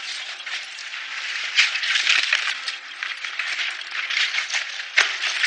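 Pencils and other small school things rattling and clattering as a school bag is searched and emptied out: a dense run of small clicks, with a sharper knock near the end.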